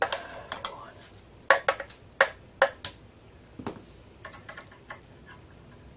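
Sharp metallic clicks and taps of a key blank and clamp parts being handled in a key cutting machine's clamp: a handful of louder clicks around the middle, a dull knock, then a run of lighter ticks.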